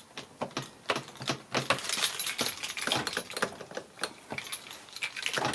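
Irregular metallic clicking and rattling of a key being worked in a 2001 Honda Civic's door lock cylinder, with the key ring jangling; the cylinder is stuck and broken, so the key won't turn it to lock.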